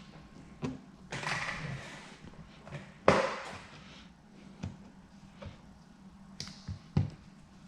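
Two spritzes from a hand pump spray bottle of tack solution, the first about a second in and a louder, sharper one about three seconds in, with scattered light taps and knocks of handling between them.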